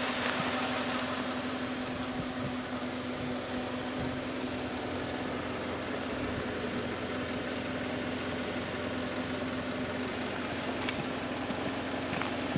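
2023 Chevy Colorado Trail Boss's 2.7-litre turbocharged four-cylinder idling steadily.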